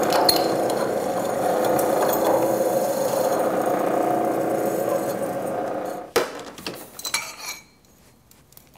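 Milling machine spindle running steadily while a drill bit cuts a hole through 1-inch square tubing clamped in a vise. The spindle stops about six seconds in, followed by a few clinks and knocks as the tube is handled in the vise.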